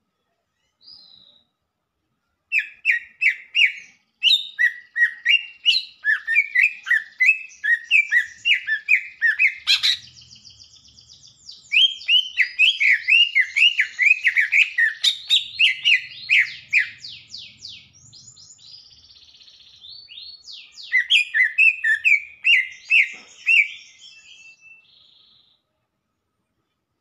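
Male green leafbird (cucak ijo) singing: fast runs of loud chirping notes, several a second, in three long phrases with a softer, more twittering pause between them.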